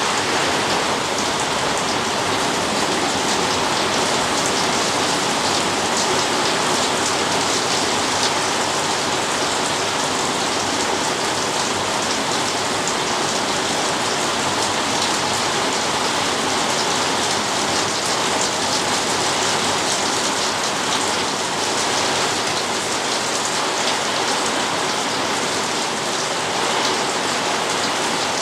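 Steady rain drumming on a corrugated iron shed roof, a dense, even patter of drops on the metal sheeting.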